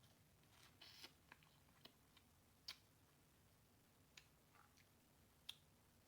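Faint eating sounds: scattered small clicks and snaps, about eight in six seconds, the sharpest about two and a half and five and a half seconds in.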